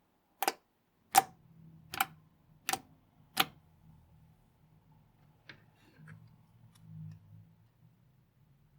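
Five sharp clicks about three-quarters of a second apart, followed by faint, soft, low handling sounds.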